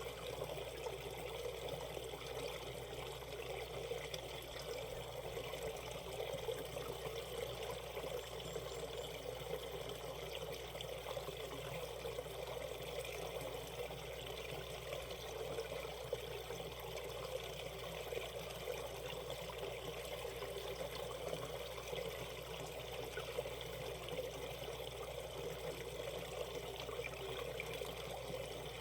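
Valley stream water flowing and trickling over rocks in a steady, unbroken rush.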